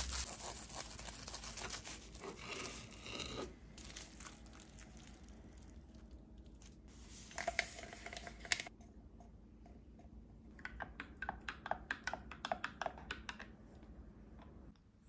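Wrapping paper crinkling as hands press it around a tortilla wrap. About halfway through, a paper drink sachet is torn open and emptied into a glass mug. Then a wooden spoon stirs the drink, a quick run of clicks against the glass.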